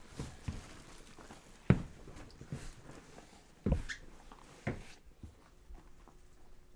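A plastic garbage bag rustling as it is lifted and carried off, with footsteps and a few sharp knocks; the loudest knocks come about two and about four seconds in.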